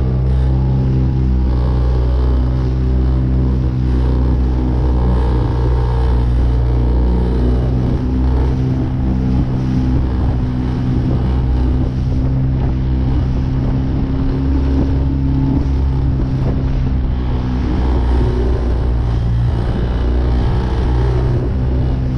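Small boat's outboard motor running steadily under way, with water splashing and rushing along the hull in choppy sea.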